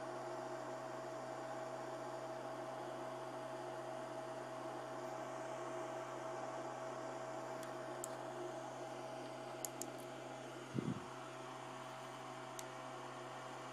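Steady electrical hum with a faint steady tone over background hiss. A few faint clicks come in the second half, and a brief low thump sounds about eleven seconds in.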